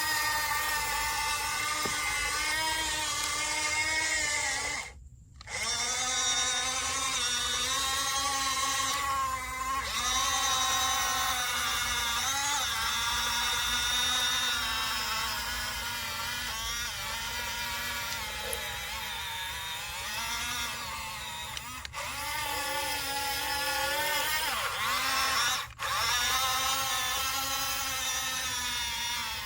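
Electric drive motors and gearboxes of a toy RC bulldozer whining as it runs, the pitch wavering up and down with the load. The whine cuts out for a moment about five seconds in, then carries on.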